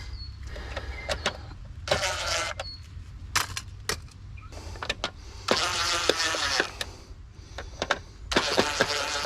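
Cordless drill driving screws in three short runs, with clicks and knocks of handling between them.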